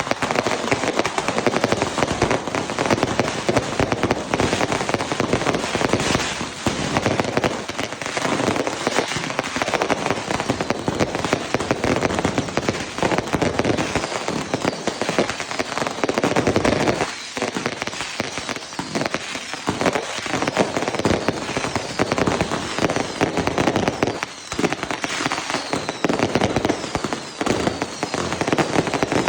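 Fireworks going off in a dense, continuous barrage of rapid firecracker bangs and crackles with no pause, and short high whistles in the second half.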